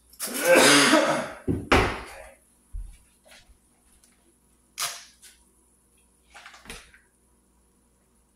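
Kitchen handling noises: a loud burst of clatter in the first second and two sharp knocks just after, then a few lighter clicks and taps as a small packet is handled.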